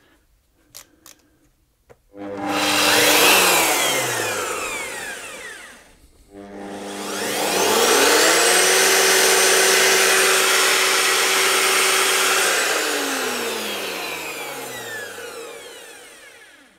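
Ryobi EBS-1310V belt sander's electric motor switched on briefly and coasting down, then switched on again, running for about five seconds with a steady whine and spinning down, a test run to check that the freed, refitted drive wheel runs true. A few light handling clicks come before the first start.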